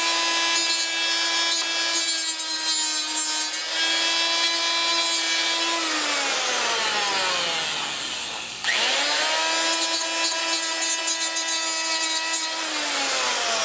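Straight die grinder with a small cutoff wheel running at a high steady whine, with gritty grinding as the wheel cuts into the part. About six seconds in it is switched off and the whine falls away as it spins down; it then starts again suddenly, runs steadily and starts to wind down near the end.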